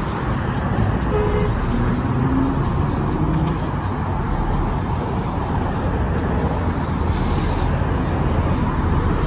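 Steady city road traffic: cars driving along a multi-lane road, a continuous rumble of engines and tyres, with a brighter tyre hiss as a car passes about seven seconds in.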